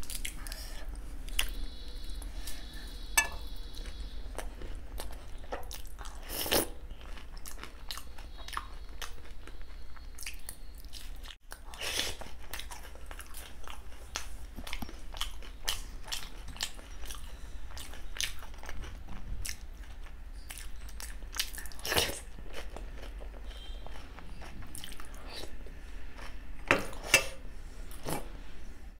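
Close-up eating sounds of dahi golgappa being bitten and chewed: crisp puri shells filled with yogurt and chutney crunching in the mouth, with many sharp crunches between wetter chewing.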